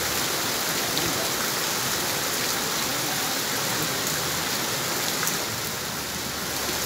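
Heavy rain pouring onto a cobbled street and running water: a dense, steady hiss.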